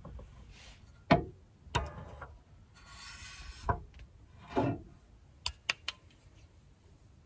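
A cooking pan being handled and set down: a few knocks and scraping rubs, the loudest knock about a second in, then a few light clicks near the end.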